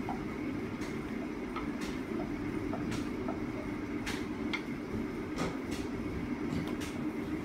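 Steady low rumbling hum with a faint high whine over it, broken by a few light clicks and taps.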